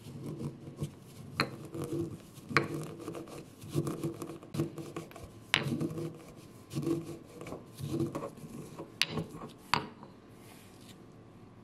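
Marble pestle grinding flaxseeds in a marble mortar: rasping, circular grinding strokes about once a second, with a few sharp clicks where the pestle knocks the stone. The grinding stops near the end.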